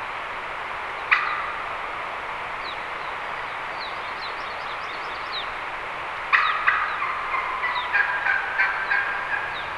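Wild turkey gobbling: one sharp gobble about a second in, then a longer run of gobbling and repeated calls from about six seconds in. A steady rushing background and a few faint high bird chirps lie beneath it.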